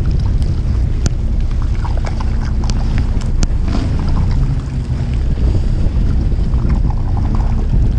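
Wind buffeting the microphone aboard a small fishing boat at sea, a steady low rumble mixed with the sound of the boat and the water around it. A few sharp clicks stand out in the first half.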